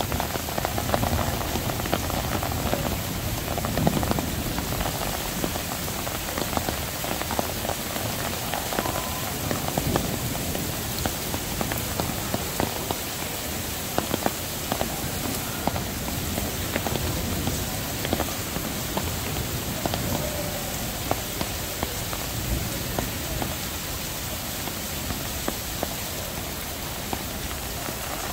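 Heavy downpour: rain falling steadily, with many sharp ticks of nearby drops striking.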